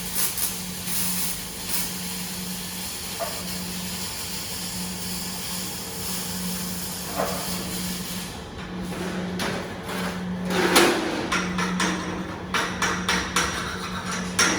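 Semi-automatic (MIG/MAG) welding arc hissing steadily, stopping about halfway through, followed by a series of sharp metallic knocks and clicks. A steady low hum runs underneath.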